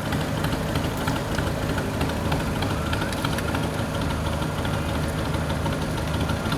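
Engine running steadily at a low, even speed, with a busy mechanical clatter of small ticks and knocks over its hum.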